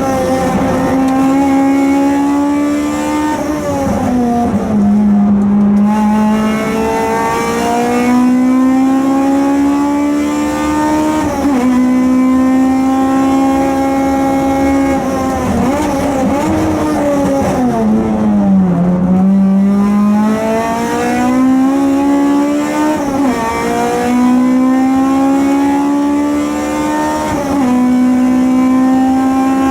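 Honda Accord Euro-R's K20A VTEC four-cylinder engine at high revs, repeatedly climbing in pitch through the gears and dropping sharply at each upshift, with two deeper dips where it slows and comes back down the gears. The car has an exhaust leak.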